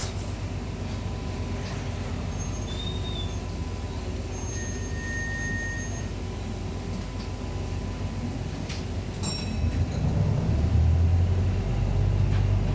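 Inside a moving bus: steady engine and road rumble, with a single stop-request bell ding about nine seconds in. The engine's low rumble grows louder over the last few seconds.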